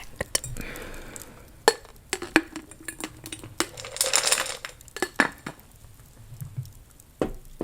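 Candy being rummaged through by hand: scattered light clicks and clinks, with a short crinkle of wrappers about four seconds in.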